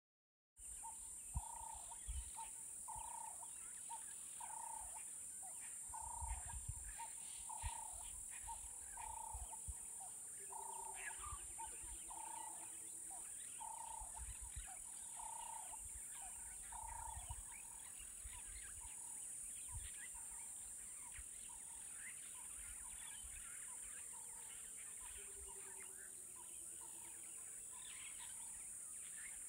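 Bush ambience: a bird repeats one note about once a second, loud at first and fainter after about 17 s, over a steady high insect hiss and scattered short bird chirps. Twice, a low run of coos falls in pitch.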